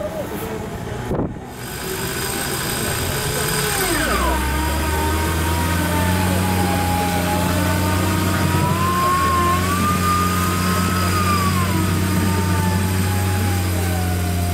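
Suzuki Jimny's engine running hard under load as it churns through deep mud, a steady drone whose pitch drops sharply about four seconds in, then wavers, rising and falling again near the end.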